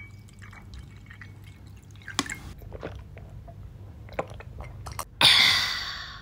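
Liquid poured and dripping into a wine glass, then small sips and swallows from the glass. Near the end comes a loud breathy burst that lasts about a second and fades.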